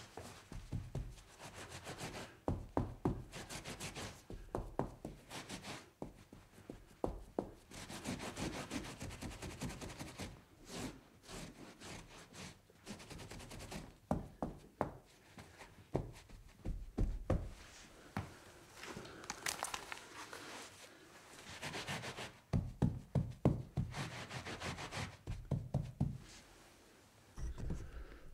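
Wiping and scrubbing a hard surface by hand: irregular rubbing strokes mixed with light knocks and taps.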